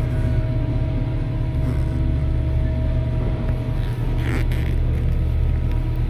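Steady low machine rumble with a constant hum running underneath, with a brief plastic scrape a little after four seconds in as the seat back's trim panel is pried at the edge.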